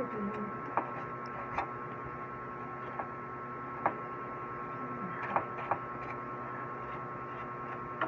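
A small paintbrush sweeping dust off the parts inside an open desktop PC case, with several sharp clicks as it knocks against the metal and components, over a steady hum.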